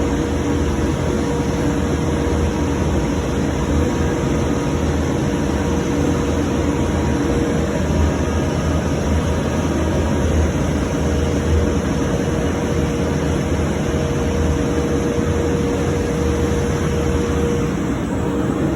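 A CNC door-jamb machine running with a steady drone and a constant mid-pitched hum, with no distinct cuts or impacts.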